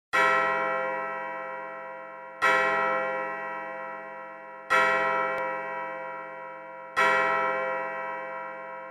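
A bell struck four times at the same pitch, a stroke about every two and a half seconds, each one ringing on and slowly fading.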